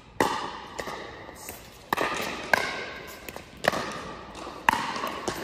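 Pickleball rally: sharp pops of paddles striking the plastic ball, with lighter taps of the ball bouncing on the court, each one echoing in a large indoor hall. Five loud hits come roughly a second apart.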